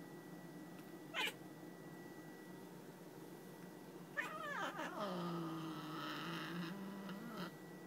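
Angry cat yowling at being touched: a brief sound about a second in, then a call that drops steeply in pitch about four seconds in and settles into a long, low growling moan lasting about three seconds.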